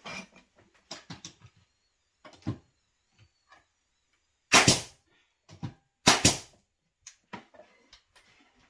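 Pneumatic nail gun firing twice, about a second and a half apart, each shot a loud sharp bang with a burst of air, nailing 1x2 pine trim board to the top of a window frame. A few lighter knocks come before the shots.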